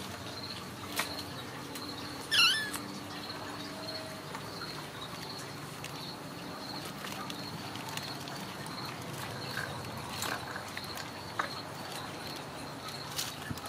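A steady, high, evenly pulsing insect trill with scattered light taps and scratches from kittens playing on a cat tree, and one short, high-pitched call about two seconds in that is the loudest sound.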